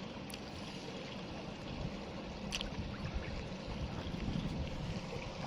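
Steady low rumbling noise of river water, with two faint short clicks.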